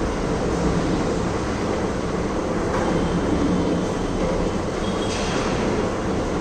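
Metal lathe running steadily: a continuous mechanical rumble and clatter, with a faint high squeal coming in partway through.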